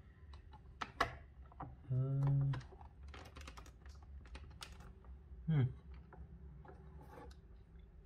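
Scattered sharp plastic clicks and taps as the hard plastic underside and wheel parts of an iRobot Roomba 650 robot vacuum are handled and pried at with a screwdriver. A man's short hum comes about two seconds in, and a brief falling vocal sound comes past the middle.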